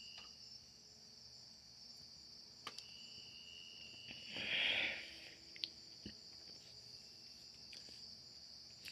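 Night insects trilling steadily in two high, unbroken bands. About four and a half seconds in, one short breathy burst of noise, the loudest thing here, with a few faint clicks around it.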